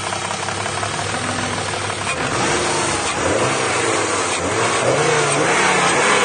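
BMW M50 straight-six engine running on LPG, its revs rising and falling a few times, with the ticking of the LPG injectors. It runs cleanly with no misfire, a new ignition coil having cured it.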